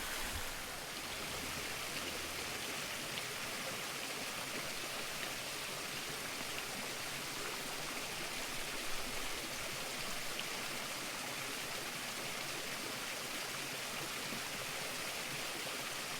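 Small woodland waterfall splashing steadily, a continuous rush of falling water.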